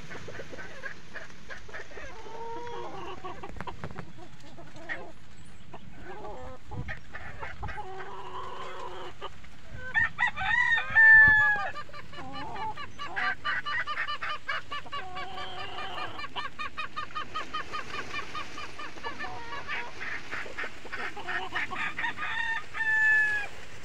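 Backyard chickens calling: a rooster crows about ten seconds in, the loudest sound, and again near the end. Between the crows comes a fast run of clucking, about five calls a second, with scattered lower clucks before the first crow.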